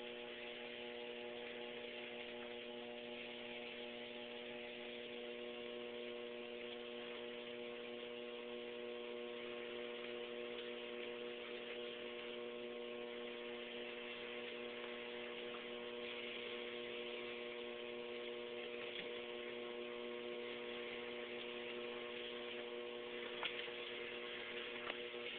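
Electric treadmill running: a steady motor hum with several fixed tones, plus hiss from the moving belt. Two short knocks come near the end.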